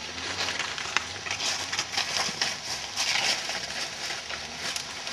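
Footsteps crunching and rustling through dry fallen leaves, an uneven run of crackling steps.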